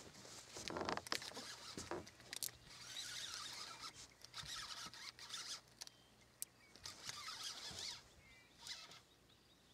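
Spinning fishing reel being cranked in short bursts as a lure is retrieved, a whirring that starts and stops several times.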